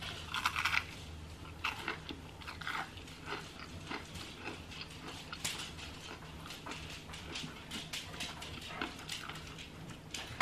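Close-up biting and chewing of a crunchy breaded onion ring, heard as a run of small wet clicks with a few louder crunches in the first three seconds. A dog is also heard at times.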